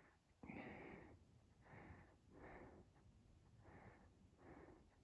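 A runner's breathing, faint, about five puffs in and out, the first the strongest.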